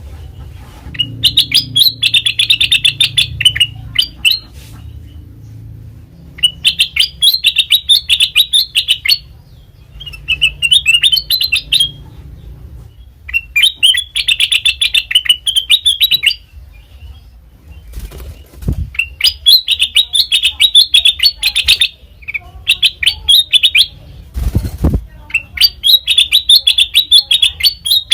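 Kutilang emas, a bulbul, calling in bursts of rapid, chattering high chirps, each burst a second or three long with short pauses between, repeated about seven times. Two brief low thuds sound in the second half.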